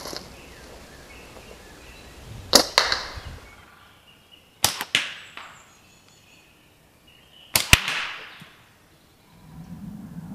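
Three slingshot shots about two to three seconds apart. Each is a sharp double crack, the snap of the released bands and a fraction of a second later the ammo striking a hanging target, followed by a brief rushing tail.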